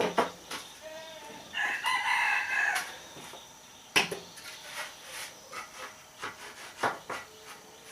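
A rooster crows once, about one and a half seconds in and lasting just over a second, amid a few sharp knocks of wood being handled.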